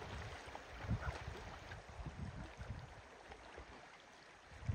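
Faint, steady rush of a flowing river, with irregular low rumbles and two louder low bumps, about a second in and near the end.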